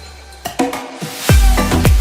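Background music: an upbeat electronic track with a steady beat, which drops out briefly and comes back with heavy bass kicks about a second in.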